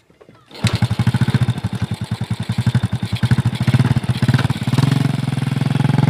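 Honda step-through motorcycle kick-started, its small four-stroke engine catching about half a second in. It then runs with a loud, fast-pulsing exhaust note through an aftermarket muffler, settling into a steadier idle about five seconds in.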